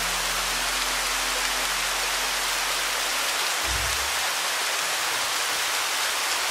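Steady sound of falling rain, an even, unbroken hiss. A faint low hum fades out about halfway through, and a brief low sound comes just before four seconds in.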